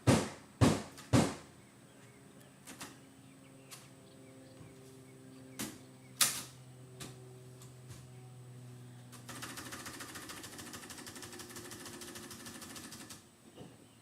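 Three loud, sharp knocks about half a second apart, then a few scattered lighter clicks, then about four seconds of fast, even ratcheting clatter that stops abruptly.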